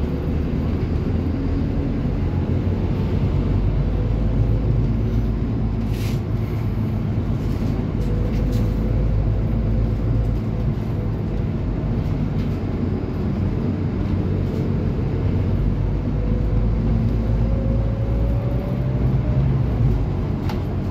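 Scania city bus heard from inside while driving: a steady engine and road rumble. A faint whine rises slowly in the last few seconds, and two short sharp rattles come about six and eight seconds in.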